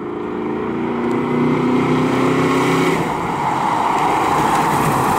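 1979 Pontiac Trans Am's 455 cubic-inch big-block V8 driving past: a steady engine note, then a louder rush of exhaust and road noise from about three seconds in as the car comes close.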